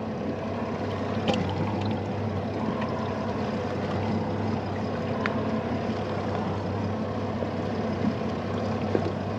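Boat motor running steadily at low speed, a continuous even hum, with water sloshing against the hull and a couple of light clicks.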